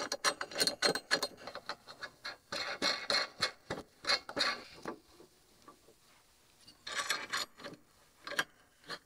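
Small metal clicks and rattles of nuts and washers being threaded by hand onto U-bolts that clamp a steel bracket to a mower's roll bar. They come in scattered clusters of ticks, with a quieter stretch about five seconds in.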